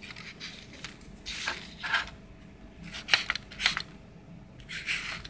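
Black marker drawing on paper: a few short scratchy strokes and some sharp ticks as the pen tip meets and leaves the sheet.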